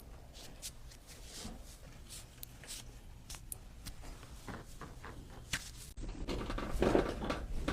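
Hands-on chiropractic adjustment of the mid-thoracic spine on a treatment table: soft handling sounds with a few faint clicks, growing louder about six seconds in.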